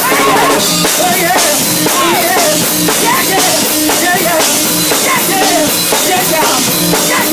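Loud live gospel band music: a drum kit keeping a steady beat under a high melody that bends up and down in pitch.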